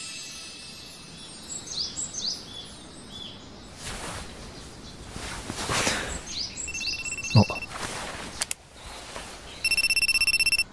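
Birds chirping in short falling calls over a soft outdoor background, with a rapid, evenly pulsing electronic ringing tone in the last second.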